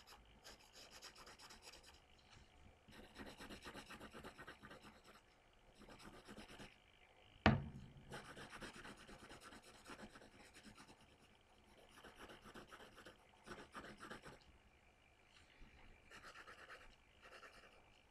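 Graphite pencil shading on paper: fast back-and-forth scratching strokes in bursts of a second or two with short pauses between. One sharp knock about seven and a half seconds in.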